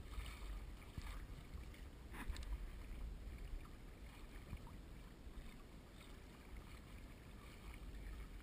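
Steady low rumble and wash of water aboard a small fishing boat under way on open sea, with a few faint knocks.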